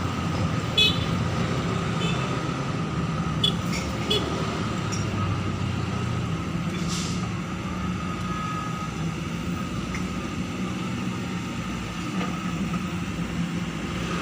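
Excavator engine running steadily, with a few short metallic clinks in the first four seconds.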